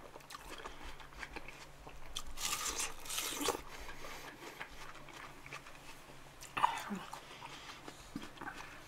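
Crisp, juicy watermelon flesh being bitten and chewed: crunching bites, the loudest spell about two to three and a half seconds in, and another sharp crunch near the end.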